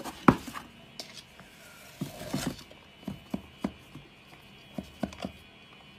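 Short knocks and rubbing in a plastic tub as a hand handles a small furry animal inside it. One sharp knock comes about a quarter second in, and lighter knocks are spread through the rest.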